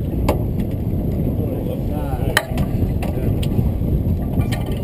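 Steady low rumble of a fishing boat under way, heard through a boat-mounted action camera's microphone, with a few sharp clicks and knocks, the loudest about halfway through.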